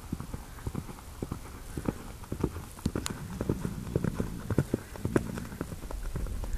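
Hoofbeats of a Thoroughbred gelding cantering on sand arena footing: a quick, uneven run of short, dull thuds.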